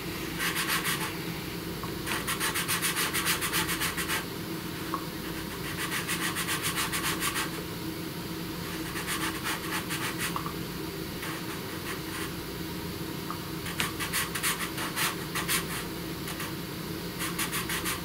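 Pastel pencil scratching over paper in short bursts of rapid back-and-forth strokes, about six bursts a few seconds apart, as blotches of color are laid in. A steady low hum runs underneath.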